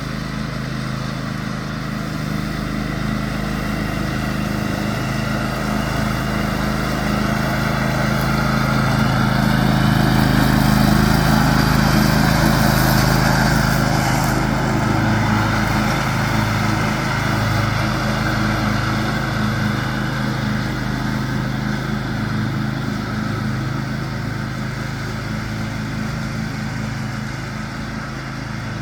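John Deere X500 riding lawn tractor running steadily while mowing. It grows louder to a peak about a third of the way through, then fades as it moves away.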